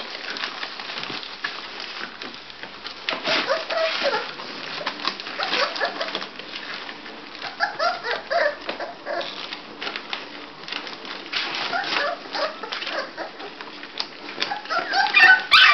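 Five-week-old bulldog puppies whimpering and squeaking in many short calls, with rustling of the newspaper bedding as they shift about. The loudest run of squeaks comes near the end.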